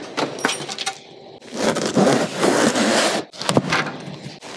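Handling noises: a metal tool chest drawer sliding open with a few clicks, then scraping and rustling of a cardboard shipping box and its packing paper.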